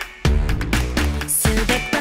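Background K-pop dance music with a punchy, steady beat; the track drops out for a moment right at the start.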